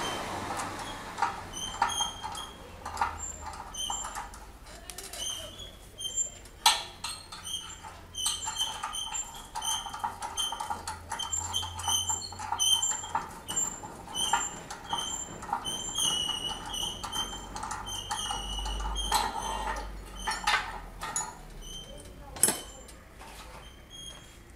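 Metal hand tools clicking and knocking against an engine as a socket wrench works the bolts around the engine mount, with a few sharper knocks. Short high-pitched chirps repeat on and off throughout.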